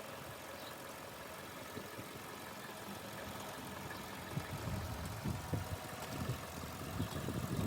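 2007 Toyota Corolla's engine idling faintly and steadily, running now that its no-crank fault has been fixed. Irregular low thumps and rumbles come in over the second half.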